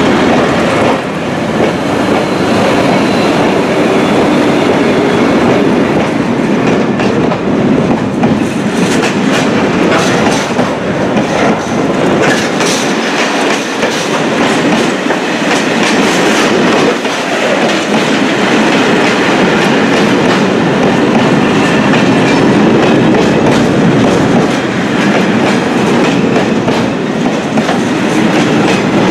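Long freight train passing close by: Dv12 diesel locomotives at the start, then a string of covered sliding-wall freight wagons rolling past, their wheels clicking over the rail joints.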